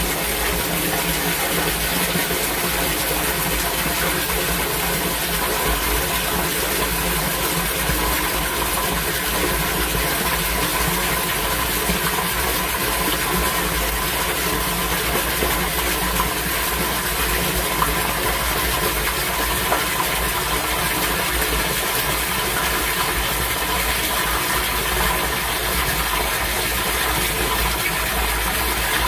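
Steady rush of stormwater gushing through a yard drainage system in torrential rain, with a low rumble underneath.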